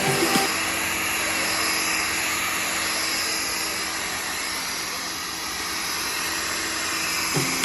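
Hoover cordless wet-and-dry vacuum running steadily, a constant motor whir with a hiss of suction, as it cleans the floor.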